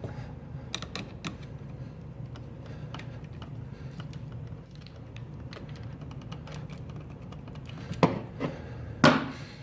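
Small irregular clicks and scrapes of a screwdriver working a power outlet's terminal screw as the white wire is fastened, with two louder knocks near the end.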